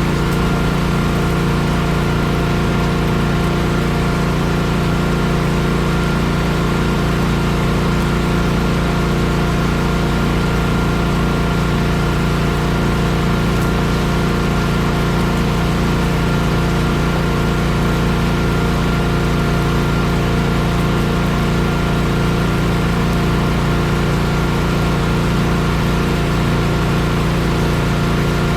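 Engine of a piece of paving equipment running steadily at a constant speed, with a low hum and a faint steady whine above it.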